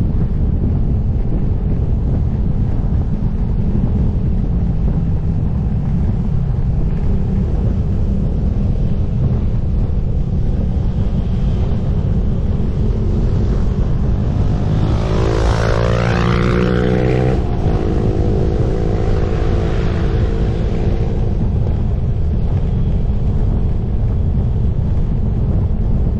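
Wind buffeting the microphone while riding a motorcycle: a loud, steady low rush. Midway an engine note swells for several seconds, its pitch sliding, then fades back into the wind.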